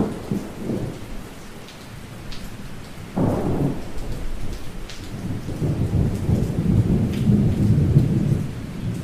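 Thunderstorm: steady rain with a thunderclap right at the start and another about three seconds in, then a long low rumble of thunder.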